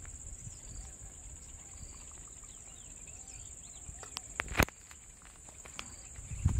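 Insects buzzing steadily at a high pitch, with faint bird chirps and a low rumble underneath. A single sharp click about four and a half seconds in is the loudest sound.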